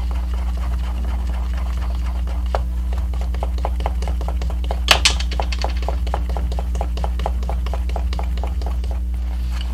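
A utensil stirring a sticky egg-and-syrup cookie mixture in a small metal bowl, clicking against the bowl several times a second, with one sharper clink about five seconds in. A steady low hum runs underneath.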